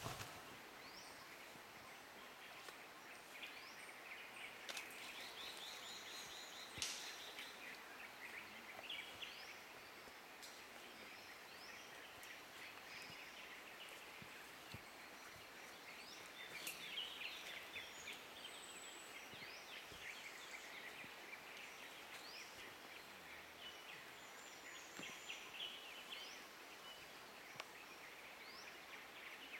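Faint rainforest ambience: several birds calling with short chirps and trills. A sharp click sounds about seven seconds in.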